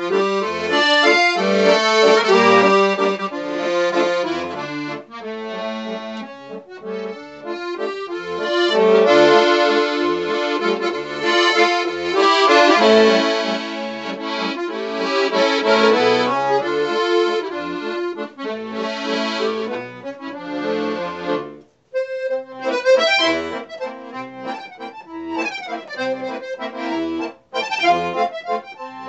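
Solo accordion playing an old Russian waltz in full, sustained chords over a bass line. About three-quarters of the way through it breaks off for a moment, then carries on with quicker, lighter runs of notes.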